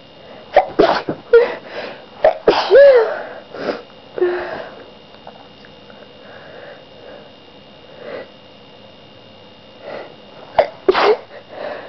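A person sneezing in a fit: several sharp sneezes in quick succession in the first few seconds, some with a voiced 'choo', then quieter breaths and sniffs, and another loud sneeze near the end.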